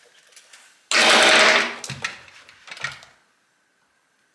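A loud clattering rattle of under a second, about a second in, then two lighter knocks: metal chainsaw parts being handled on a workbench.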